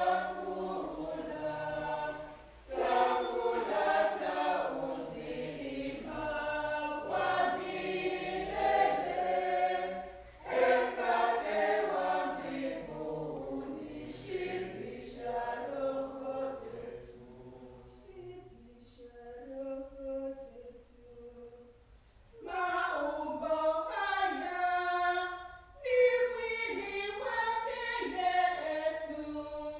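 A choir singing a hymn in long phrases. The singing drops softer for several seconds past the middle, then comes back at full strength.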